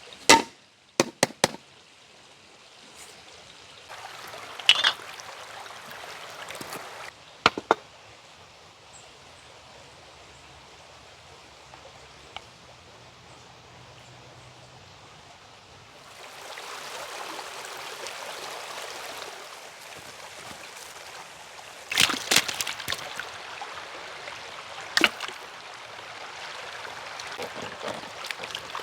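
Stream water running steadily, with scattered sharp clicks and knocks: a few near the start, then around a quarter of the way in, and a cluster about three quarters of the way through.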